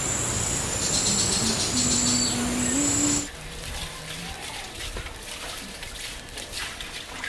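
Wood fire in a clay chula burning under a bundle of taro leaves, with an even hiss and a steady high insect-like chirp. About three seconds in, the sound drops suddenly to a quieter hiss with faint scattered crackles from the glowing coals.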